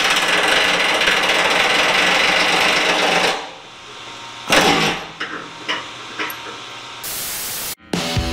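Half-inch Ingersoll Rand 2235 Titanium air impact wrench hammering on the hinge bolts of a dump truck tailgate. It runs for about three seconds, stops, then fires one short burst about four and a half seconds in, with a few metal knocks after. A brief flat hiss comes near the end.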